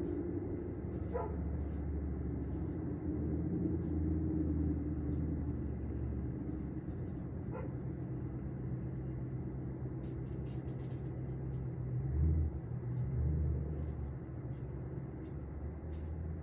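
A dog barking twice, single faint barks about a second in and again about seven seconds in, over a steady low rumble.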